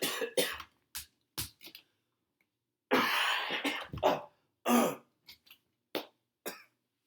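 A man with a chest cold in a coughing fit: several sharp coughs, a longer drawn-out cough about three seconds in, then a few smaller coughs that die away.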